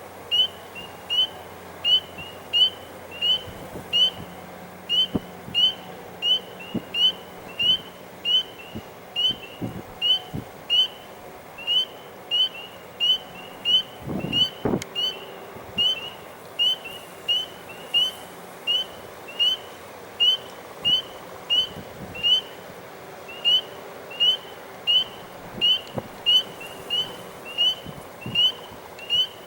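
A spring peeper calling from a pond: one short, high, rising peep repeated about twice a second at an even pace. A couple of low thumps come about halfway through.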